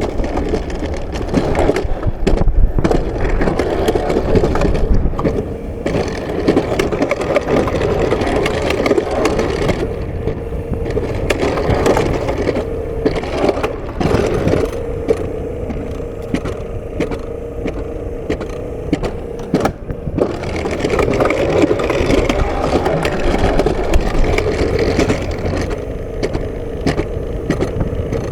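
Alpine coaster sled rolling fast down its steel rail track: a continuous rumble and clatter of the wheels on the rails, with a steady hum through the middle stretch and many short clacks over the rail joints.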